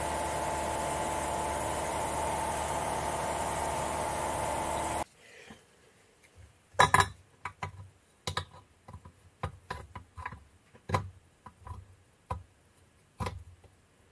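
A steady mechanical hum that stops abruptly, followed by a series of sharp metallic clinks and knocks as oxygen sensors are handled and test-fitted into the steel bungs of an exhaust pipe, the loudest knock about halfway through.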